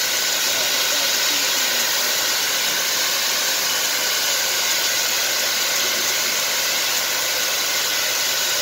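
Steady hiss of steam from the standing Reading & Northern 425, a 1928 Baldwin steam locomotive, even and unbroken with no exhaust chuffs.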